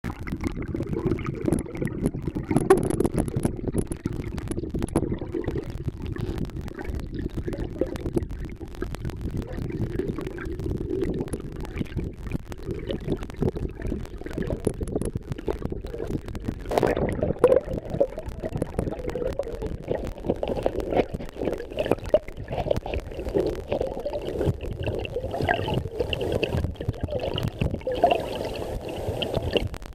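Rushing stream water heard from underwater: a muffled low rumble and gurgle with many small clicks and ticks, and a single knock partway through.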